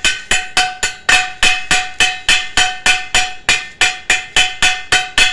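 Welder's chipping hammer striking fresh stick-weld beads on a steel square-tube joint, knocking off the slag. About four evenly paced strikes a second, each with a short metallic ring from the steel.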